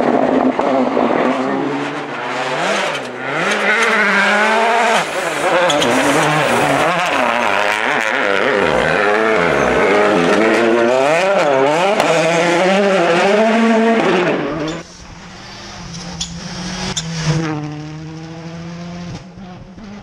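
Rally car engines at full throttle, the revs swinging sharply up and down through gear changes and corners. About three-quarters of the way through the sound drops suddenly, leaving a quieter engine.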